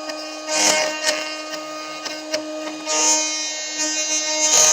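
A woodworking power tool running with a steady whine, as small wooden pieces are fed along its fence and cut, giving louder rasping bursts about half a second in, around three seconds and near the end.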